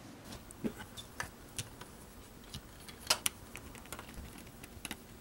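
Scattered light clicks and ticks of a screwdriver driving small tap screws into a shotshell carrier's plates and of the parts being handled, the loudest a sharp click about three seconds in.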